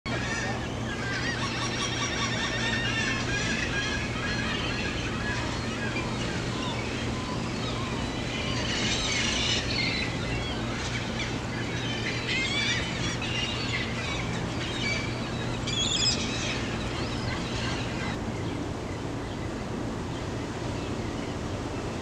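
Gulls calling over and over, several harsh calls overlapping, until the calling stops about 18 seconds in. A steady low hum runs underneath.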